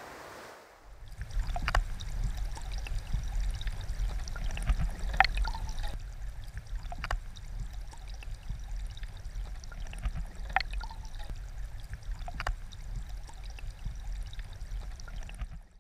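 River water flowing: a steady low rushing rumble with a few sharp clicks scattered through it. It starts about a second in and fades out at the very end.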